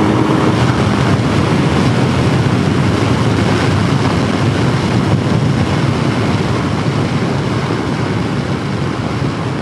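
Wind rush and engine noise of a BMW R 1250 GS at about 120 to 140 km/h, picked up by a helmet-mounted camera: a loud, steady rushing that eases slightly toward the end.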